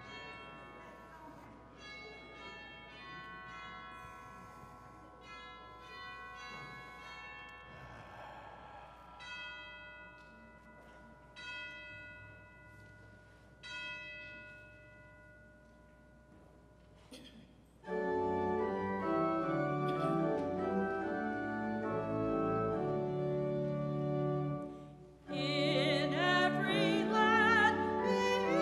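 Soft bell-like notes ring out one at a time and fade. About eighteen seconds in, a pipe organ comes in loud with full chords. Near the end a singing voice with vibrato joins the organ.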